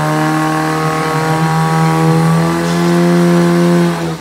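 Portable fire pump's engine running flat out, driving water through the attack hoses. It is one steady, loud engine note whose pitch creeps up and then drops suddenly at the very end.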